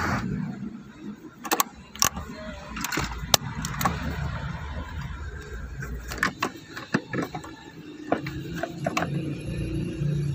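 Irregular clicks and clinks of a socket tool and metal parts being handled at a car's handbrake lever, over a low steady hum.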